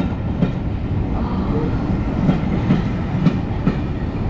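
Pullman railway carriages rolling past at low speed: a steady rumble from the wheels, with clicks every half second or so, often in close pairs, as the wheels cross rail joints.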